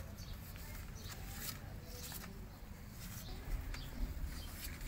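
Siamese mother cat making a few soft, short calls, calling her kittens to nurse, among scattered light clicks and rustles.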